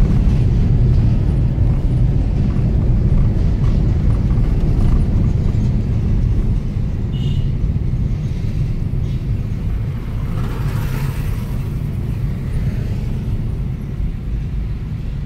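Car engine and road noise heard inside the cabin: a steady low rumble that eases off slightly toward the end, with a brief rush of higher noise about ten seconds in.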